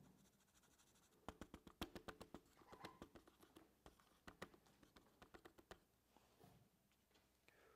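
Faint, irregular light clicks and taps of hand work at a desk, a run of them between about one and six seconds in.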